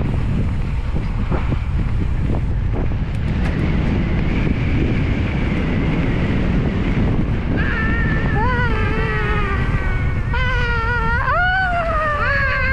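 Wind buffeting the action camera's microphone with a steady low rumble as an electric mountain bike rolls along a dirt singletrack. From about eight seconds in, a high wavering tone with overtones bends up and down over the rumble.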